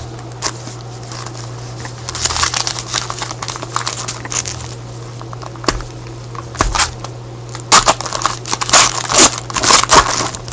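Crinkling and tearing of a hockey trading-card pack wrapper being opened and handled, in irregular crackly bursts that are loudest in the last few seconds.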